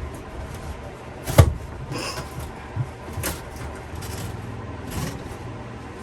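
Irregular wooden knocks and bangs as a built-in cabinet, nailed down at the bottom, is forced loose. The loudest bang is about a second and a half in, with two more spread through the rest and a few lighter taps between.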